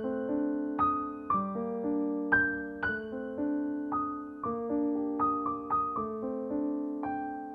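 Slow, gentle background music: single keyboard notes and soft chords struck one after another, each ringing out and fading before the next.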